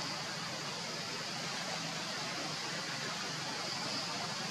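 Steady outdoor background noise: an even hiss with a continuous high-pitched drone running through it.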